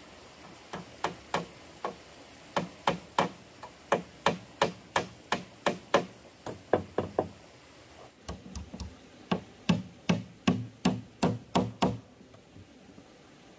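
Hammer driving nails into wooden planks: sharp blows about three a second, with a short break partway through, stopping near the end.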